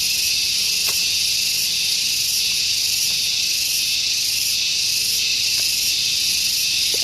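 A loud, steady, high-pitched insect chorus, with a faint even pulsing in its highest part.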